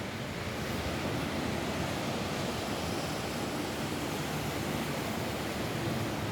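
Rain falling steadily on a roof, an even hiss with no separate drops or gusts standing out.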